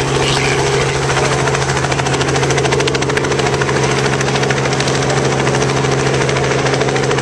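Light two-bladed helicopter flying low, its engine and rotor running steadily with a fast, even blade beat over a fixed low hum.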